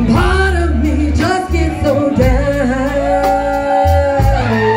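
A woman singing lead into a microphone with a live band: bass, guitar and drums. She holds one long note about halfway through.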